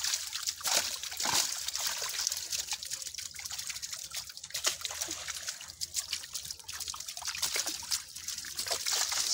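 Water splashing and trickling as fish and prawns thrash in a net held in shallow water, with hands working through the catch: a busy, irregular patter of small splashes.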